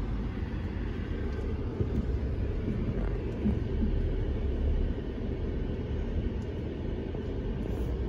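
Jeep Gladiator's engine and drivetrain rumbling steadily at low speed, heard from inside the cab as the truck drives slowly over bare rock.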